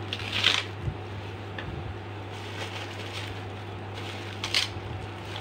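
Taro being cut into cubes on a boti, a Bengali floor-mounted curved blade. There are two brief crisp slicing sounds, about half a second in and near the end, and a few soft knocks, over a steady low hum.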